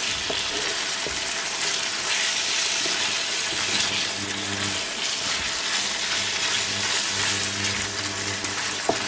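Chicken livers and shallots sizzling steadily in butter in a frying pan over moderate heat, stirred with a wooden spatula. A low steady hum joins underneath about three and a half seconds in.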